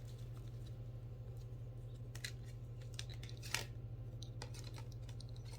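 Tarot cards being handled: a few faint clicks and rustles, the clearest about two and three and a half seconds in, over a steady low hum.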